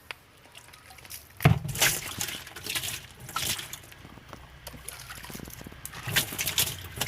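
Water trickling and sloshing in a washing machine's wash tub while it is cleaned of caked detergent residue, with irregular knocks and rubbing, starting about a second and a half in.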